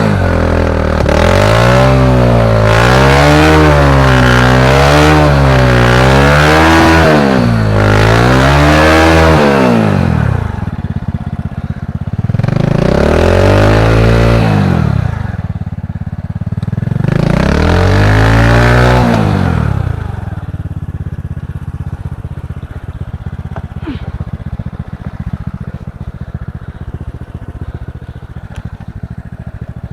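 Honda KPH 125 cc single-cylinder four-stroke motorcycle engine in a trail bike, revved up and down repeatedly for about ten seconds. It then gives two longer revs that rise and fall, and settles to a steady idle about two-thirds of the way through.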